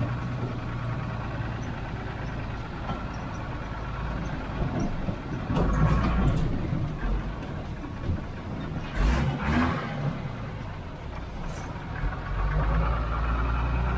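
Tata S-model 4x4 truck's diesel engine running steadily as the truck wades up a shallow river, with a few louder jolts and rattles about six and nine seconds in.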